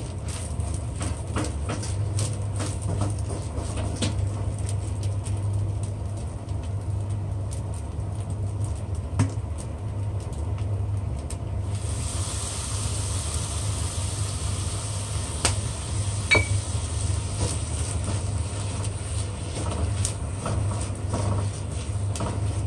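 Plastic spatula scraping and tapping against a nonstick frying pan while fried rice and egg are stir-fried, over a steady low hum. About halfway through, a sizzling hiss comes in as something is added to the hot pan, with a sharp knock a few seconds later.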